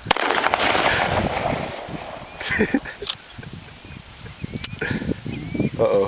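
MPA 30 9mm pistol firing a rapid string of shots that lasts about two seconds, echoing off the riverbank. A few separate sharp cracks follow, with small birds chirping in the background.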